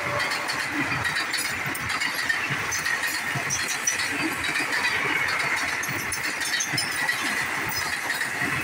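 Passenger train coaches passing at speed close by: steady rushing wheel-on-rail noise with a faint high ring over a low rumble.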